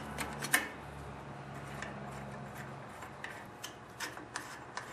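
Light metallic clicks and ticks of a wrench and the carburetor's long 8 mm mounting bolts being worked loose on a Briggs & Stratton lawn tractor engine: a sharper click about half a second in, then a run of irregular ticks near the end. A low steady hum sits underneath.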